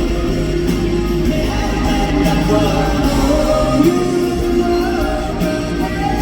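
Live rock band playing through a hall PA: guitars, bass and drums carrying a held melody line, with little or no singing.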